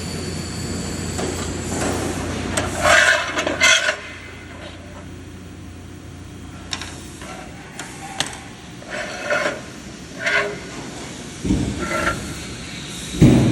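Fiber laser welding machine at work: a steady hum for about four seconds, then short bursts of hiss and crackle, a few sharp clicks, and two low thumps near the end.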